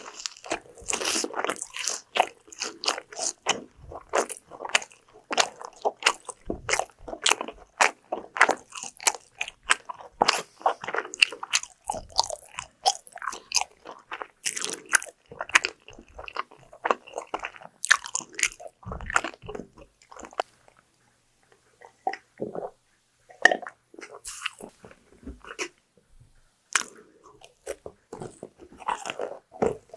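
Close-miked biting and chewing of crunchy food, many crisp crunches in quick succession. The crunching thins out for a few seconds after about twenty seconds in, then picks up again near the end.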